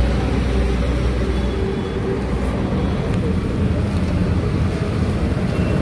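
Steady road noise of highway traffic, with a low rumble.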